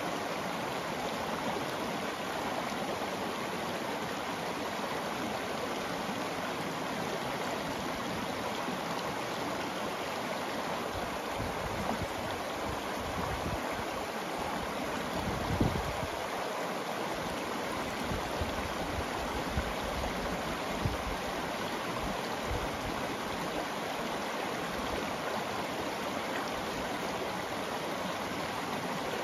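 Shallow, stony river running steadily over cobbles and small riffles: a constant rushing and rippling of water. A few low bumps break in through the middle stretch, the loudest about halfway through.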